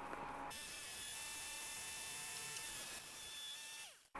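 Battery-powered electric logging winch motor running with a steady buzzing whine. Near the end it winds down, its pitch falling as it stops.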